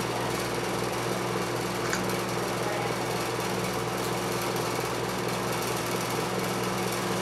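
Steady mechanical hum with an even hiss over it, unchanging.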